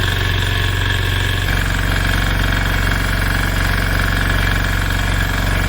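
An engine running steadily at a fixed speed with a fast, even pulse, its note shifting slightly about one and a half seconds in.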